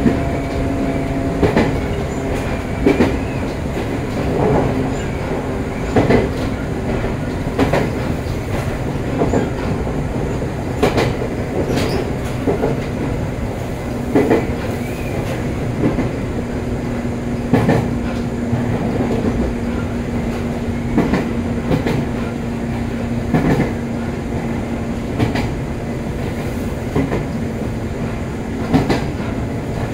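Joshin Line electric train running at speed, its wheels clacking over rail joints at a regular beat of roughly one clack every second and a half, over a continuous rumble and a steady hum.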